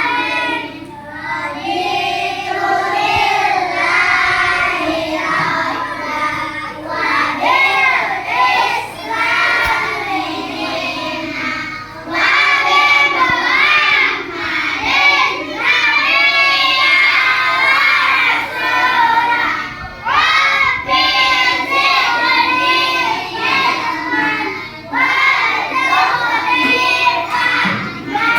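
Children singing a song, the voices running on in phrases with short breaks between them.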